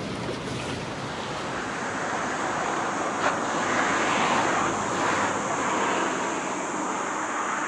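Gusty wind: an even rushing noise that swells a little about halfway through.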